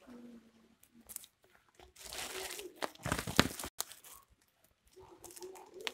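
Twine and a sack needle being drawn through a woven plastic sack of paddy as its mouth is stitched shut, with the sack fabric crinkling. The rasping strokes are loudest from about two to three and a half seconds in, with more near the end.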